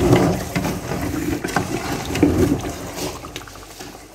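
Pots cooking on a stove: a bubbling, watery sound of food and water on the boil, uneven and fading somewhat toward the end.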